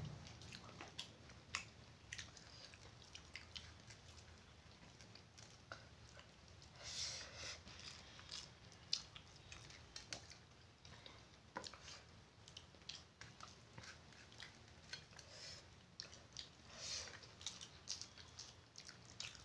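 Faint eating sounds: chewing with scattered small clicks and taps, and a couple of soft smacking patches.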